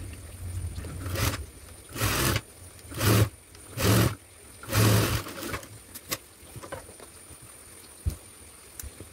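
Sewing machine stitching in five short bursts, about one a second, as a fabric strip is fed along a blouse neckline a few stitches at a time. A few faint clicks follow.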